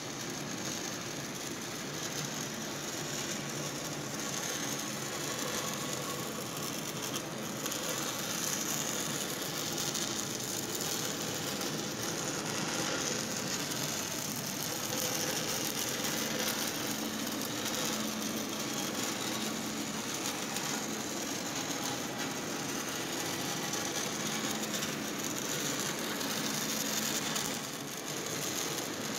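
Two stick-welding (shielded metal arc) arcs crackling steadily at once on a horizontal joint of an 18-inch steel pipe. The sound dips briefly near the end.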